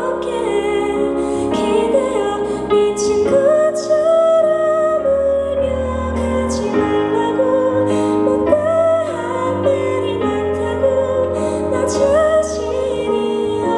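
Slow, gentle indie song: a sung melody, tagged as a female voice, over sustained accompaniment chords and a steady bass line.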